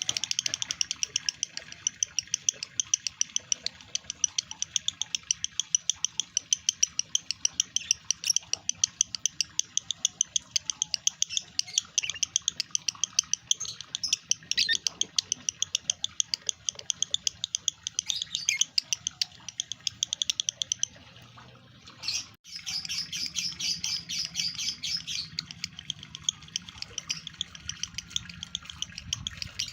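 Male lovebird in breeding condition chattering: a long, fast run of short, high chirps, several a second. It stops briefly about two-thirds of the way through, then resumes as denser chatter.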